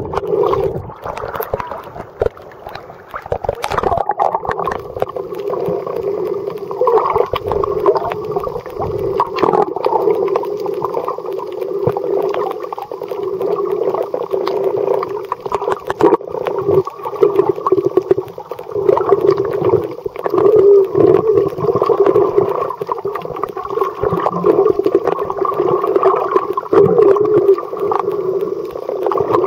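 Muffled underwater sound picked up by a submerged camera's microphone: a steady, wavering gurgling wash of water, with a few faint clicks.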